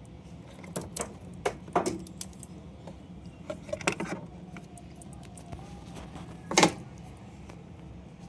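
Scattered clicks and light rattles of hands handling plastic parts and wiring connectors while the electrical lead is plugged onto a Bosch dishwasher's pump motor, with a louder knock about six and a half seconds in, over a low steady hum.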